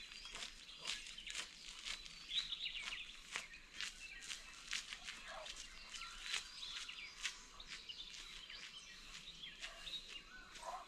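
Footsteps on a forest path at about two steps a second, with birds chirping.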